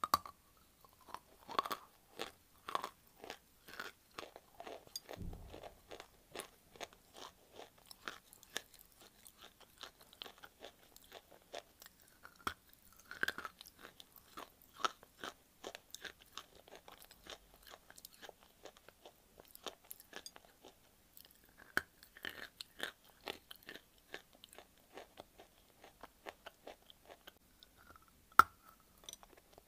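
A dry white clay block bitten off with a sharp snap, then chewed with a long run of dry crunches. A second sharp bite comes near the end.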